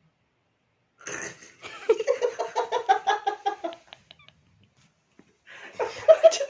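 Person giggling in quick, stifled pulses, in two bouts with a pause of about a second and a half between them.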